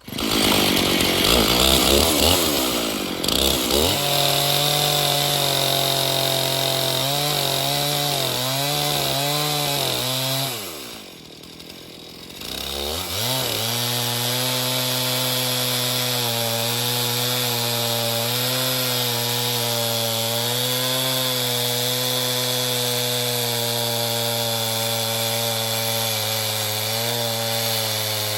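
Chainsaw on an Alaskan chainsaw mill starting up and revving. It drops off briefly about eleven seconds in, then runs steadily at high revs, under load ripping through a pine log.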